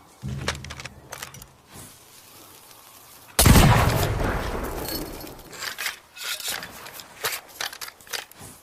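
Tanegashima matchlock gun firing once, about three and a half seconds in: a single loud, sudden blast that dies away over a couple of seconds. A shorter, weaker burst comes near the start, and a series of light, sharp clicks follows the shot.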